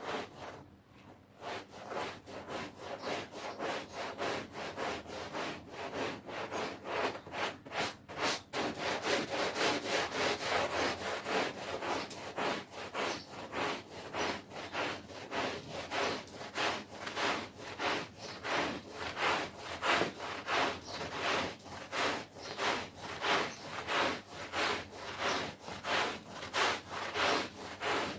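Stiff brush scrubbing a carpet in rhythmic back-and-forth strokes, about two a second, growing stronger about eight seconds in.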